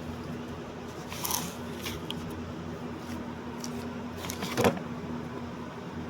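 Steady low electrical hum with a few brief handling noises: a short noise about a second in and a louder thump about four and a half seconds in.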